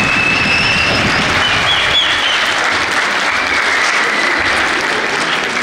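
Audience applauding steadily, with a few high voices calling out over the clapping.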